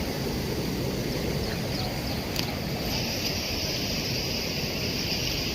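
Wind buffeting the microphone: a steady rumbling noise. A steady high hiss strengthens about three seconds in.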